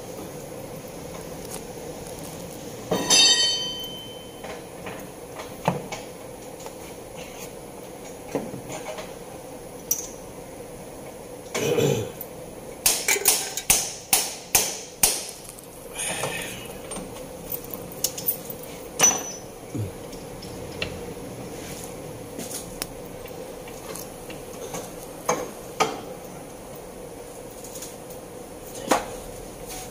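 Metal tools and parts clinking and knocking during engine work. A single ringing metallic clang comes about three seconds in, and a quick run of sharp taps, like hammer strikes, comes near the middle, over a faint steady hum.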